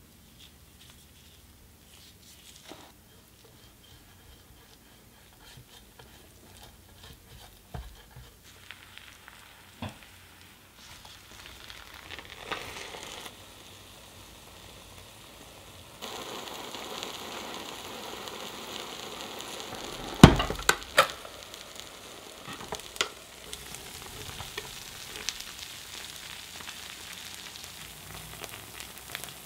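A few soft clicks of bread being handled, then sandwiches sizzling on the hot plates of a Black+Decker WM2000SD 3-in-1 sandwich maker. The sizzle builds a little before halfway and is louder from just past halfway on. Two sharp clacks, the loudest sounds, come about two-thirds through.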